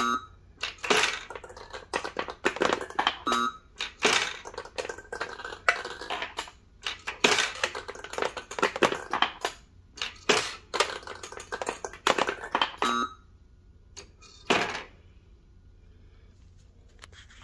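Balls clattering and rattling through a Taiyo Challenge coin-operated ball game, with a rapid run of sharp knocks. The clatter stops about thirteen seconds in, followed by one last knock a second and a half later.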